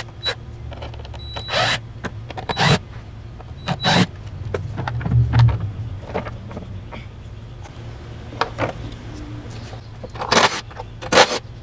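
Scattered clicks and knocks of hand tools and plastic engine-bay parts being handled while an air box is pulled out, over a steady low hum. The loudest knocks come near the end.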